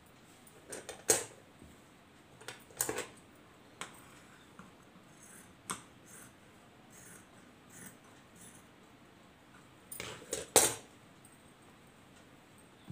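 Scissors snipping through rayon-cotton cloth in several separate bursts with pauses between, the loudest about a second in and around ten seconds in, along with the rustle of the fabric being handled and the clink of bangles.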